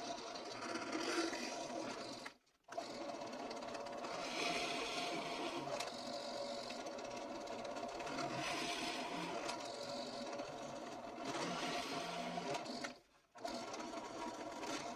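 Benchtop drill press running steadily, its bits boring holes in wooden boards, with louder stretches of cutting noise as the bit bites into the wood. The sound cuts out briefly twice.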